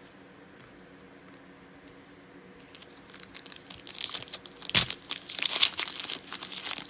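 Trading-card pack wrapper being torn open and crinkled, starting about two and a half seconds in after a quiet stretch, with a sharp rip about two-thirds of the way through.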